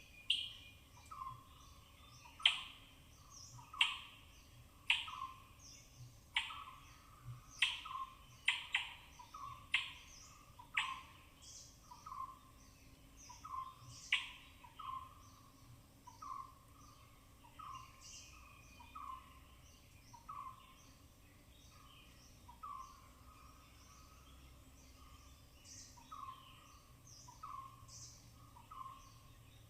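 An animal calling repeatedly: sharp, high calls that drop quickly in pitch, about one a second, each followed by a softer lower note. The calls are loudest in the first half and grow sparser and fainter later, over faint steady forest background noise.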